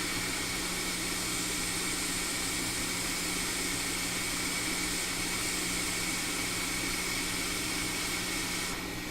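Hot air rework station blowing a steady hiss with a faint hum, heating a chip's solder to lift it off a phone logic board. The airflow cuts off shortly before the end.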